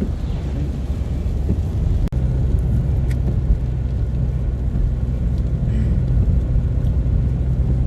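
Car interior noise while driving: a steady low engine and road rumble, with a brief break about two seconds in.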